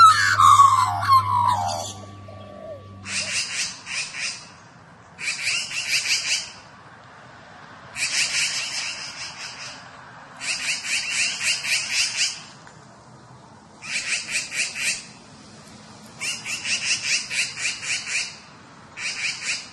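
Australian magpies carolling, with warbling calls gliding down in pitch. Then, from about three seconds in, magpies give a harsh, rapid rattling chatter in bursts of about a second, seven times, while gathered over a dead magpie.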